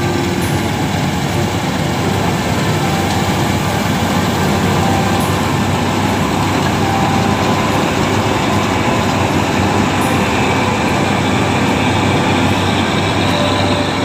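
New Holland Clayson 8080 combine harvester running loud and steady at close range as it cuts and threshes standing wheat, its engine and threshing machinery churning together.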